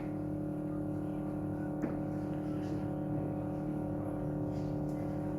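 Background music holding steady sustained tones, with one faint click about two seconds in.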